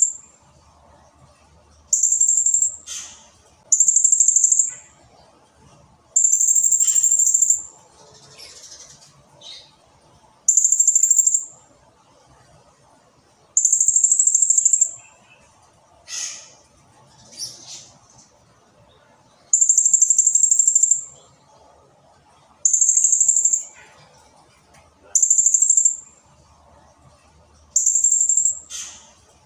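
Blue-crowned hanging parrot (serindit) singing: about nine shrill, very high-pitched trilling bursts, each about a second long, at irregular gaps, with fainter short chirps between them.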